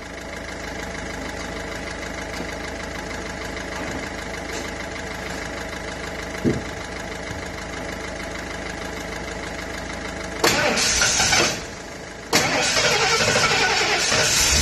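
Ford F250 engine idling steadily, with a thin high tone running through it. About ten and a half seconds in comes a short, loud, hissing burst, then a longer one from about twelve and a half seconds.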